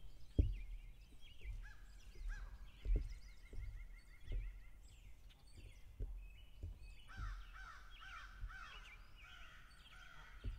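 Wild birds calling and chirping across a pond, with a run of quickly repeated calls from about seven seconds in. A few low thumps on the microphone in the first half are the loudest sounds.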